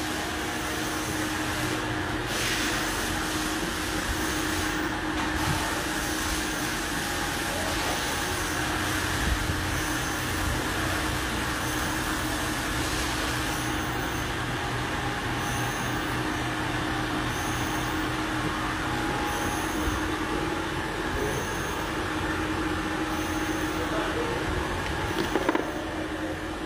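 CNC milling machine running steadily: a constant hum with a steady tone under a haze of machining noise, and a light regular tick about once a second in the second half.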